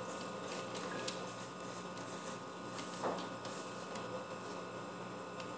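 Quiet room tone with a steady low hum and a few faint ticks, one a little louder about three seconds in.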